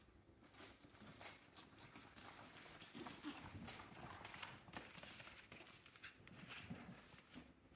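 Faint scuffling and tapping of pug puppies' paws and claws as they scamper over a mat and hard floor, with a few short, low grunts.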